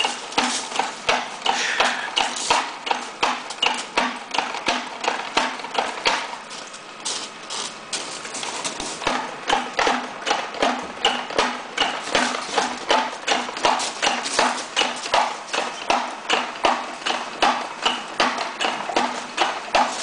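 Hand winch ratchet clicking in a steady rhythm, about two to three clicks a second, as it is cranked to hoist a large microwave dish; the clicking pauses briefly about six seconds in.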